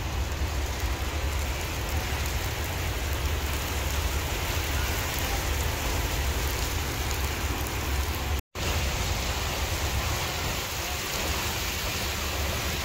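Heavy rain pouring onto wet paved ground: a steady hiss with a deep rumble underneath. It cuts out for an instant about eight and a half seconds in.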